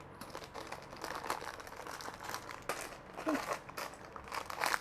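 Plastic packaging crinkling and rustling in irregular crackles as earrings are handled and unpacked.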